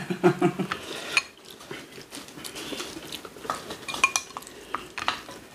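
Eating utensils clinking and scraping against bowls and dishes during a meal: a series of irregular clicks and taps, with one short ringing clink about four seconds in.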